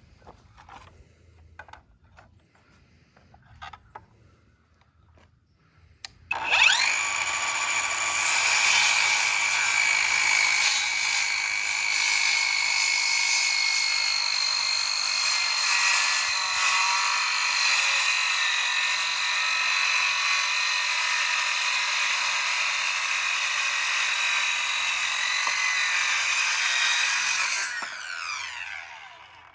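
An electric power tool spins up suddenly about six seconds in with a rising whine. It runs steadily and loudly for about twenty seconds, then winds down with a falling whine near the end. Before it, only a few faint clicks.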